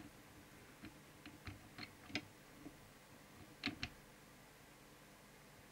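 Faint scattered clicks and light taps of hand and tool working on a CB radio's circuit board while transformer 5 is adjusted, loudest about two seconds in, with a close pair near four seconds; a faint steady low hum underneath.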